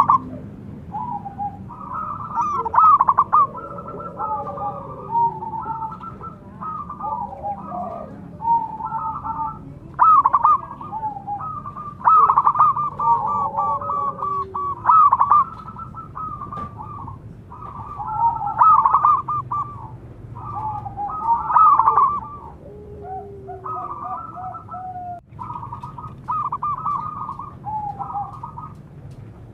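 Zebra doves (perkutut) calling back and forth: repeated bursts of rapid staccato cooing notes, some phrases overlapping.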